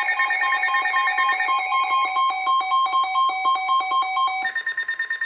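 Several emergency-alert receivers sounding their alarm tones at once: a chorus of overlapping, rapidly pulsing beeps at different pitches, the alert for a flood warning. Some of the tones stop about four and a half seconds in.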